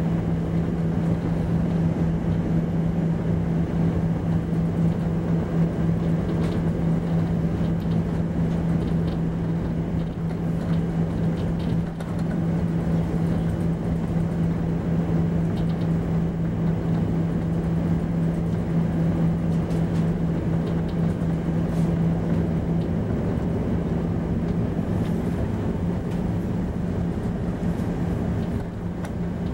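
Airbus A340-300's CFM56 jet engines running at taxi power, heard inside the cabin as a steady rumble with a strong low hum. The hum eases off near the end.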